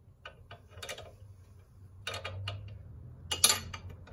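Steel bearing-puller parts and a wrench clicking and clinking as the puller is adjusted and turned: a few scattered clicks, a quick run of them past the middle, and one sharp metallic clink near the end, the loudest.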